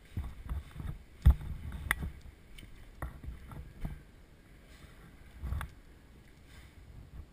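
Irregular knocks, rubbing and rustling close to the microphone, typical of gear being handled or jostled while moving. There is a sharp click a little over a second in and another about two seconds in.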